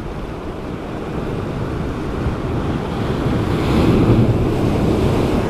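Sea surf breaking on a rocky shore, with wind buffeting the microphone; a wave crashes louder against the rocks about four seconds in.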